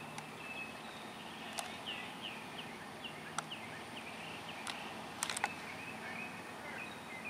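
Quiet outdoor ambience with a bird chirping in runs of short, quick notes, several a second, and a few sharp clicks.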